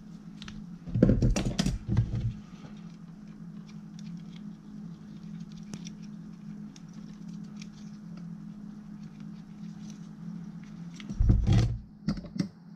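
Hand crimping pliers squeezing a red insulated wire terminal, with a loud crunching squeeze about a second in and again near the end. Small clicks from handling the tool and wire come in between, over a steady low hum.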